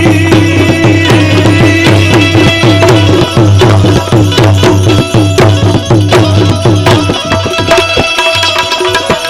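Instrumental interlude of Gujarati folk devotional music: fast hand-drum strokes under a melody instrument playing quick, repeated falling runs.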